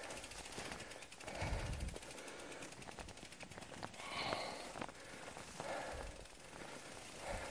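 Heavy, gasping breaths about every second and a half from someone pushing a bicycle up a slippery climb, over a fast run of ticks from the bicycle's rear freewheel clicking as the bike is wheeled along.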